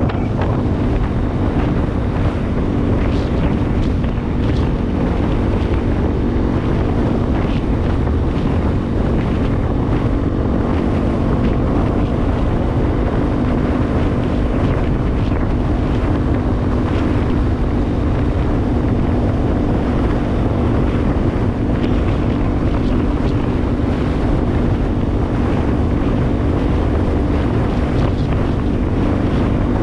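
Yamaha WR250R's single-cylinder four-stroke engine running at steady cruising revs, under heavy wind noise on the microphone.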